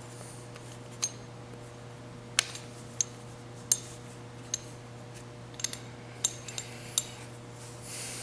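Small metal parts and tools clicking and clinking as the master cylinder's piston and seals are fitted back into the bore: about a dozen sharp, scattered clinks over a steady low hum.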